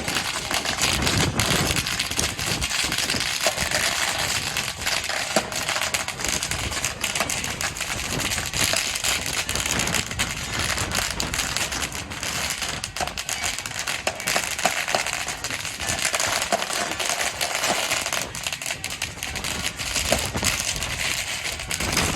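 A long string of firecrackers going off, a dense, continuous crackle of rapid small bangs.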